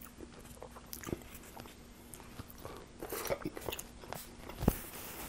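Close-miked mouth sounds of a person chewing and biting a Subway sandwich on flatbread, with small wet clicks and a busier stretch about three seconds in. A single sharp, low thump comes near the end.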